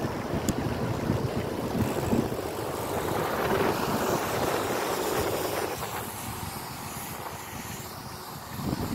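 Wind buffeting the microphone of a camera carried on a moving road bike, a rushing noise with a fluttering low rumble over a wet road. It swells in the middle and eases near the end.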